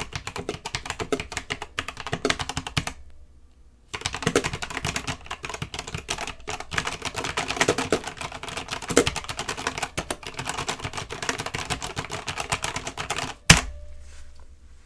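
Typing on a Corsair K70 RGB Pro Mini mechanical keyboard: rapid keystroke clicks, pausing for about a second near three seconds in, then a single louder knock about a second and a half before the end.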